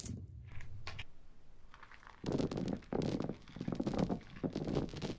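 Coins, mostly pennies, raining down onto carpet. A few scattered clinks come first, then from about two seconds in a dense, continuous clatter of many coins landing and knocking against each other.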